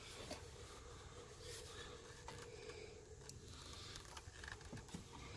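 Near silence: a faint steady hum with a few soft, scattered clicks.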